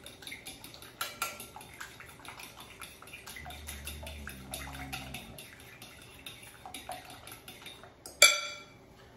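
Fork beating eggs in a ceramic bowl: quick, steady clicking of the tines against the bowl, several strokes a second. Near the end comes one louder, ringing clink.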